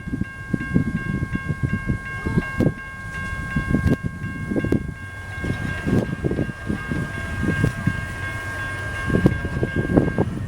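Train at a level crossing: a long steady high-pitched tone held for about ten seconds and cutting off near the end, over uneven low rumbling, with a fainter bell-like tone pulsing about three times a second.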